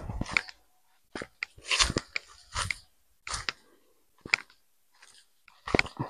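Footsteps crunching on dry grass, leaf litter and stony ground, in an uneven walking rhythm of about one step every half second to a second.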